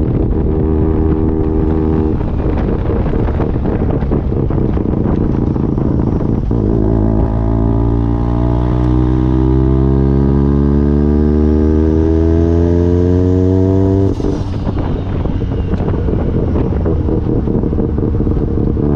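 Bridgeported Mazda 13B-REW rotary engine running under way, heard from the open cockpit. About six and a half seconds in, its pitch climbs steadily for some seven seconds as the car accelerates, with a faint high whistle rising alongside. Then the note breaks off abruptly and the engine carries on at lower revs.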